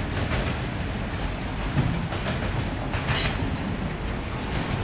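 Freight train of autorack cars rolling past, its wheels rumbling and clicking over the rail joints. A brief high-pitched wheel squeal comes about three seconds in.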